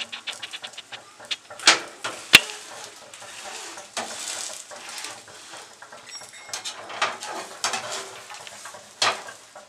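Egg frying in a pan on a gas stove, with a light sizzle while metal utensils scrape and knock against the pan. There are two sharp knocks about two seconds in and scattered clinks later.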